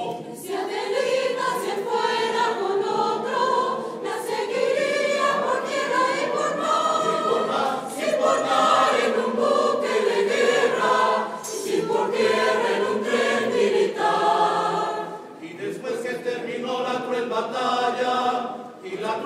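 Choir singing, with brief pauses between phrases about fifteen seconds in and again near the end.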